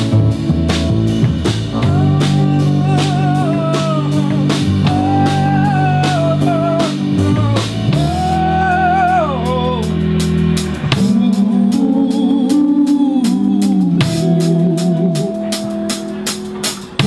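Live rock band playing an instrumental passage: drum kit keeping a steady beat under bass and guitar, with a wavering lead melody line that slides down about nine to ten seconds in.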